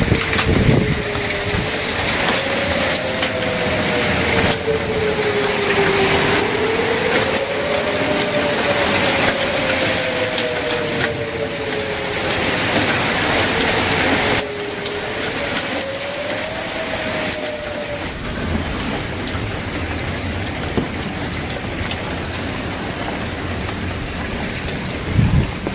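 Heavy rain and hail pouring down in a steady hiss, with two outdoor tornado warning sirens wailing at slightly different pitches, each slowly rising and falling. The sirens die away about two-thirds of the way through while the downpour keeps on.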